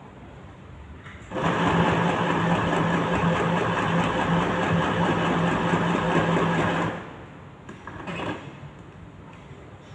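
Electric sewing machine stitching a side seam: it starts abruptly, runs steadily at speed for about five and a half seconds, and stops.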